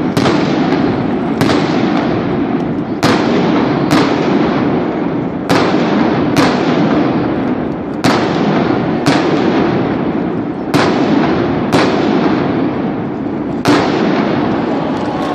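Firework shells bursting overhead, about eleven sharp bangs, mostly in pairs about a second apart with a longer gap between pairs, each trailing off in a rumbling echo, over a steady background din.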